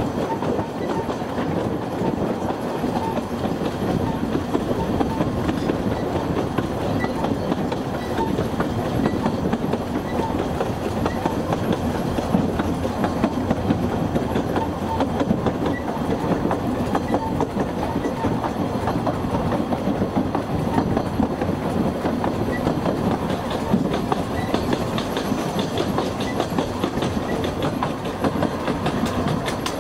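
Narrow-gauge train running along the line: a steady rumble of wheels on rail, with light clicks every second or so.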